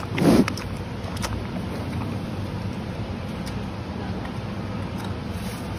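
Steady low rumble of wind noise on a phone microphone, with one short, loud breath about a quarter second in from a giant panda whose nose is right at the microphone.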